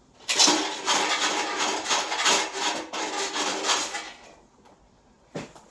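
A cable-pulling rod being pushed through a steel chassis rail, scraping and rattling against the metal inside for about four seconds. A single knock follows near the end.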